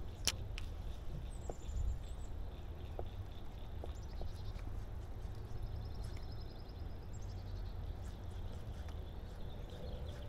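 Quiet outdoor ambience: a steady low rumble with a few faint clicks, a faint high chirp about a second in, and a faint rapid high-pitched trill around the middle.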